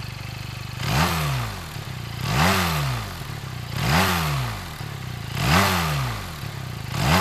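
QJMOTOR SRK 400's parallel-twin engine, with both pistons rising and falling together and even firing, idling and blipped five times about every second and a half. Each blip rises in pitch and falls back to idle, a sound said to recall a BMW Boxer.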